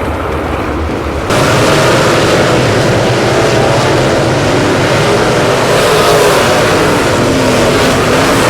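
Dirt late model race car engines running and revving on a dirt track, a dense, loud din of several engines whose pitch wavers up and down. About a second in, the sound jumps abruptly from a low rumble to this louder engine noise.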